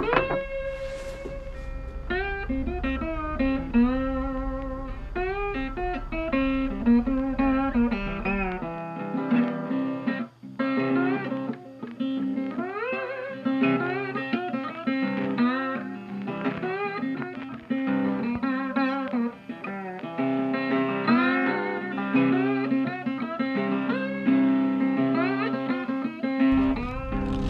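Background music: a guitar-led track with sliding, bluesy guitar notes over a steady bass line.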